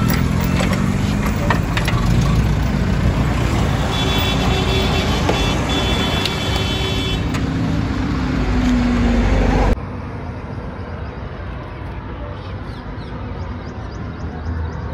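Road traffic: vehicle engines running, with a horn sounding for about three seconds midway. The sound cuts off abruptly near the end to quieter traffic noise.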